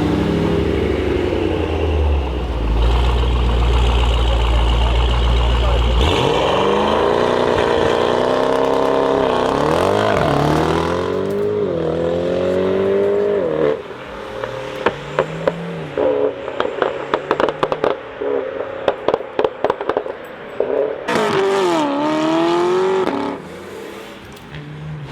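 An engine rumbling steadily, then revving up and down several times in long rising and falling sweeps. A rapid run of clattering clicks follows, then one more rev.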